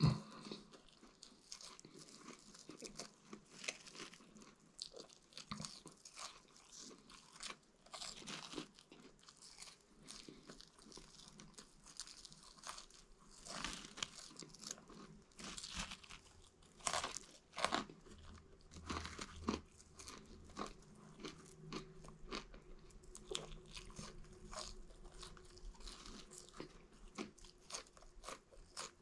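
A person chewing and eating french fries close to the microphone: soft, irregular crunching and mouth noises.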